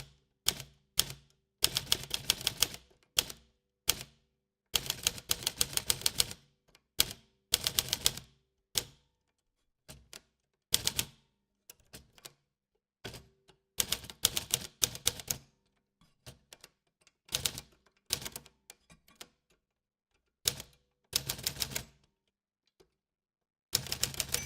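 Old typewriter being typed on: runs of rapid key strikes in bursts of a second or two, separated by short pauses.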